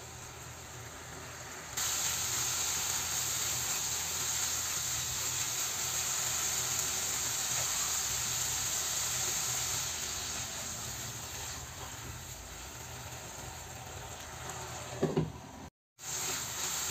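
Thick curry sizzling and bubbling in a nonstick frying pan, a steady hiss that jumps louder about two seconds in and breaks off briefly near the end.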